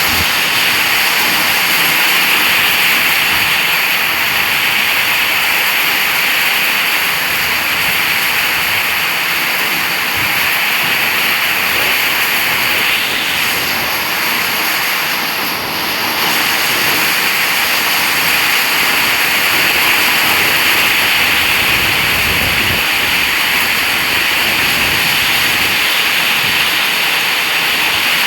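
Steady, loud rushing hiss of a rainstorm, heavy rain with wind, with no breaks or single events.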